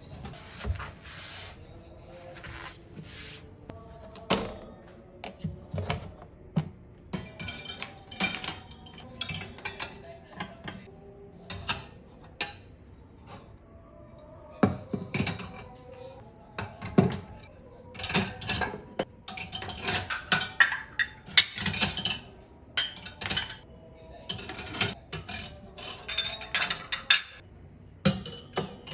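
Ceramic plates and mugs clinking and knocking against a stainless-steel wire dish rack as they are set into it one after another: many short, separate clinks and rattles, coming thicker in the second half.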